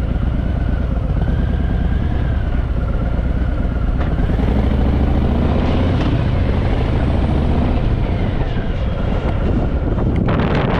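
Harley-Davidson Fat Boy V-twin motorcycle engine running under way, its pitch rising as it accelerates a few seconds in, with wind rushing over the microphone and a louder gust near the end.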